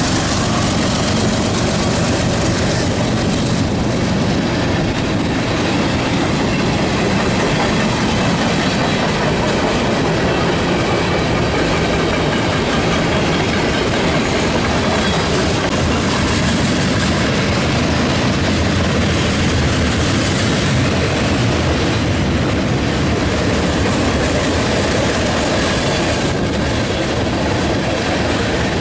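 Freight cars rolling past, their steel wheels running loud and steady on the rails.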